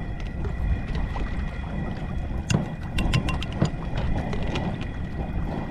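Wind rumbling on the microphone, with a run of small clicks and taps around the middle as a spoon scoops mayonnaise from a jar and knocks against a small bowl. A faint steady high tone runs underneath.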